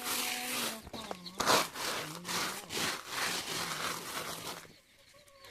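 Repeated rough rubbing or scraping strokes, about two a second, that stop shortly before the end.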